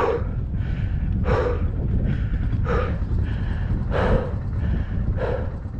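A person breathing hard close to the microphone, a strong breath about every second and a half with softer ones between, over a steady low rumble.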